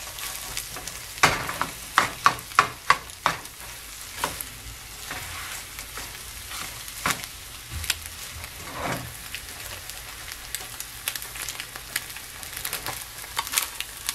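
Scrambled eggs sizzling in a small frying pan on an electric coil burner while a plastic slotted spatula chops, scrapes and turns them. A flurry of sharp taps and scrapes comes in the first few seconds, then fewer and more scattered ones over the steady sizzle.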